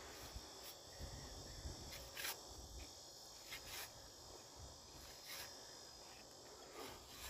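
Faint, steady high-pitched insect chorus, with about five short scrapes or knocks spread through it from a shovel working wet concrete in a mailbox-post hole.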